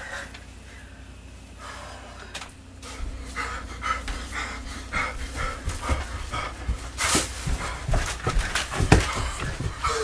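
A person panting hard, out of breath, at about two breaths a second from about three seconds in. A few knocks and rustles of movement come in between the breaths.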